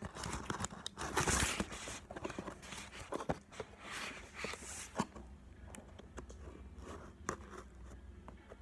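A knife cutting into a cardboard parcel box: irregular scrapes of the blade through the cardboard, mixed with sharp clicks and knocks.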